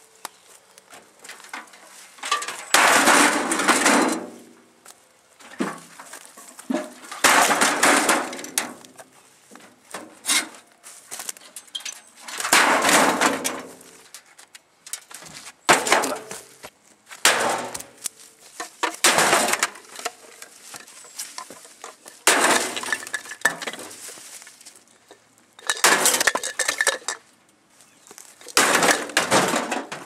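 Repeated crashing and rattling of a gutted Sanyo EM720 microwave oven's sheet-metal shell being kicked and smashed apart, about ten separate blows with short pauses between.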